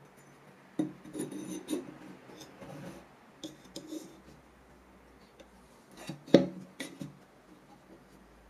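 A steel plane iron and a wooden wedge are fitted into a wooden hand plane body: scraping and clicking of steel against wood for about two seconds, then a few more clicks. About six seconds in come a couple of sharp knocks, the loudest sounds here.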